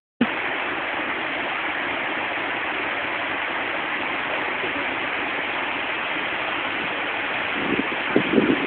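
Steady rush of a fast-flowing river running over rocks. A voice comes in briefly near the end.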